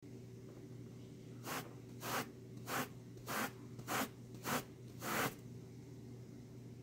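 A rubber balloon rubbed back and forth on a cloth, seven quick swishing strokes about one every 0.6 s, charging the balloon with static electricity.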